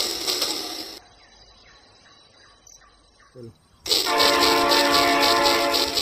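Battery-powered toy train sets running on plastic track with a fast rhythmic clatter, which cuts out abruptly about a second in. Nearly four seconds in it returns loudly with the toy's steady whistle sound over the rhythmic chugging.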